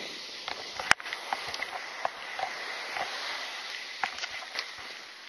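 Surf washing on the shore as a steady hiss, with light clicks and knocks and one sharp click about a second in.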